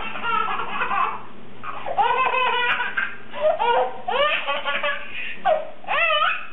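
A baby laughing hard in several bouts, each rising and falling in pitch, with short breaks between them.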